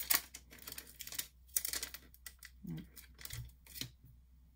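Quick light clicks and clatter of clear plastic stamp sets being handled and sorted on a wooden desk, stopping about four seconds in.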